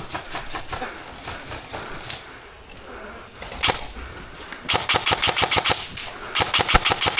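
Airsoft guns firing rapid full-auto bursts, each shot a sharp click. The shots are fainter and scattered at first, with a short burst near four seconds, then a loud, sustained close-by burst from about five seconds in.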